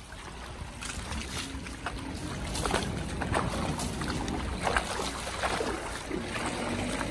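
Maruti Suzuki Gypsy's engine running low as the 4x4 crawls over a wet, rocky streambed, its tyres crunching on stones and splashing through shallow water with many sharp knocks. The sound grows louder over the first few seconds.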